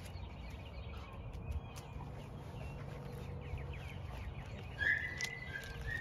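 Small birds chirping over a steady low hum, with a run of quick chirps followed by a short high whistled note about five seconds in, the loudest sound.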